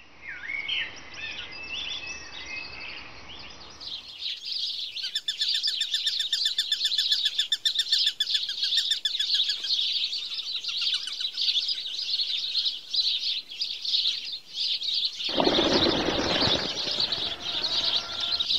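Birds chirping and tweeting. From about four seconds in there is a dense, continuous high chorus, with a fast repeated chirping for a few seconds. A short rush of noise comes about three seconds before the end.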